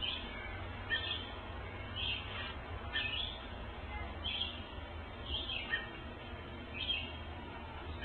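Robins calling: short, high chirps repeated about once a second, over a low steady rumble.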